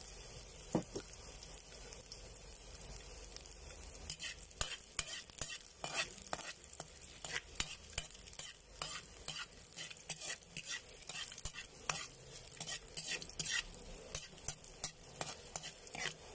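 Chopped garlic sizzling in a little oil in a metal wok, with a spoon scraping and clinking against the pan in quick, irregular strokes from about four seconds in.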